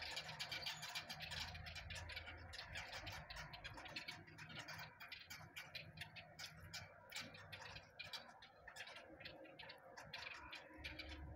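A flock of small birds perched on power lines giving faint, rapid chips and clicks, a dense overlapping chatter over a low hum.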